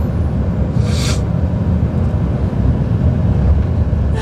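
Steady low rumble of road and engine noise inside a moving car's cabin, with a brief hiss about a second in.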